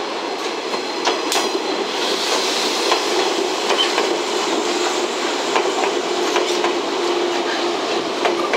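JNR 115 series three-car electric train running past, its wheels clacking over rail joints and points with irregular sharp clicks over a steady rumble. A steady tone joins in about five seconds in.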